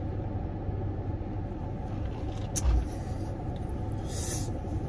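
Steady low rumble of a car idling, heard inside its cabin. A single dull thump comes a little past halfway, and a short paper-napkin rustle near the end.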